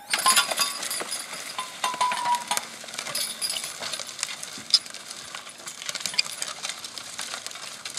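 A horse-drawn steel disc harrow (a three-point-hitch tractor disc) cutting through plowed, cloddy soil: the gang of disc blades and frame clatter and clink steadily, over the grinding of dirt.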